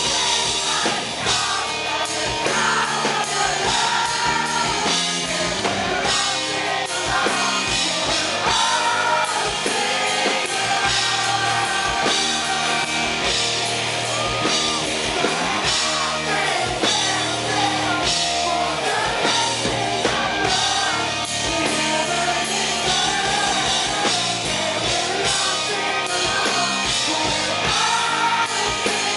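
Live rock band performance: a male lead singer singing into a microphone over a full band with drums.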